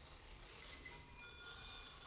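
A thin stream of rice grains pours from a swinging cone pendulum onto a rice-covered floor and into white ceramic bowls, setting the bowls ringing with light clinks and short high tones. It grows a little louder about three-quarters of the way through.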